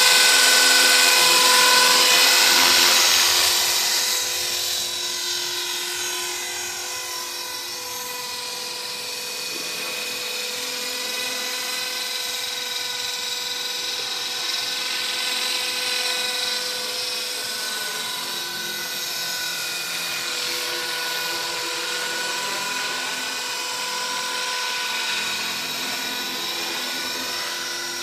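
Electric 450-size RC helicopter (HK 450 Pro TT) flying: a steady high-pitched whine from its brushless motor and spinning rotor. Loud for the first few seconds while it hovers close, then quieter and wavering in tone as it climbs away and moves around overhead.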